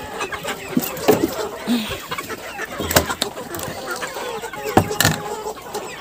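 Chickens clucking, with a few scattered sharp clicks and knocks.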